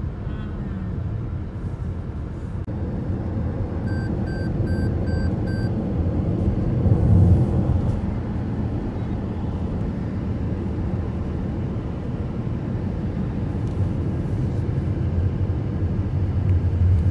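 Car driving on a city road, heard from inside the cabin: a steady low rumble of engine and tyres that swells briefly about seven seconds in. About four seconds in comes a quick run of five short high beeps.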